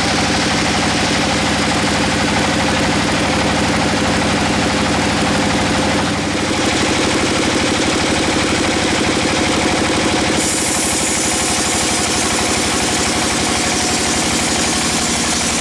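Bandsaw mill's engine running steadily. There is a slight change in its note about six seconds in, and a brighter, hissier sound joins from about ten seconds in.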